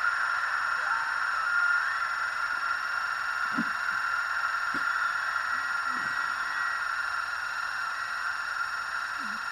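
Bitx40 40-metre SSB transceiver receiving band noise: a steady hiss from its speaker, cut off below the low voices, with a few brief faint chirps as the tuning encoder is turned across the band.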